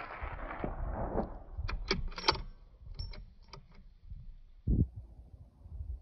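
The report of a suppressed Tikka T3x CTR .223 rifle shot rolling back off the rocky hillside and fading over about a second and a half, then a quick run of sharp metallic clicks as the bolt is worked to chamber the next round. A dull knock follows near the end.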